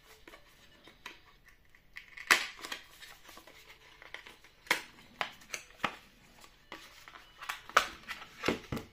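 Cardboard packaging being handled and opened: a series of short scrapes and rustles as the card box is slid apart and its flaps unfolded.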